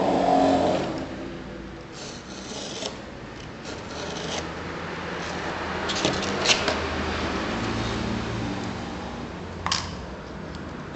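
Sandpaper being handled and torn against the edge of a steel ruler: rustling and scraping, loudest in the first second, with a few sharp clicks about six seconds in and one more near the end.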